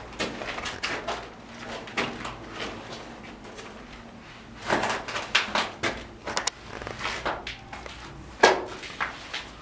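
Irregular knocks, scuffs and rustles of people moving about in a small cellar, with a busier patch about five seconds in and one sharper knock near the end.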